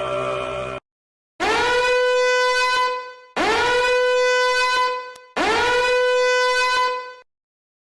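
A horn sound effect blown three times: three identical long blasts, each scooping up into one held note, with short gaps between them. Before the first blast, a droning sound cuts off abruptly.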